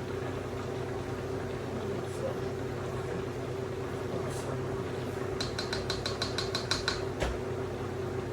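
A quick run of about a dozen metallic clicks, roughly eight a second, then one sharp knock, as parts of a deer-feeder cage are fastened, over a steady hum.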